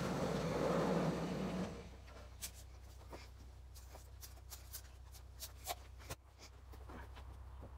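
Sawmill running noise that falls away about two seconds in, followed by a string of light metallic clicks and knocks as the log clamp and bed of a Woodland Mills HM130 bandsaw mill are worked by hand.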